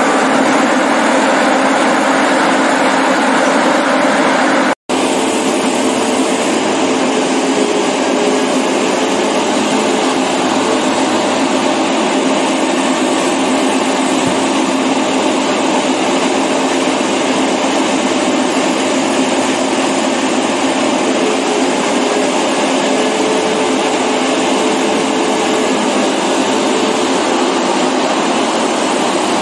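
Large excavator on steel tracks running over a concrete floor: a steady, loud mix of engine and track noise with a few held tones. The sound drops out for an instant about five seconds in.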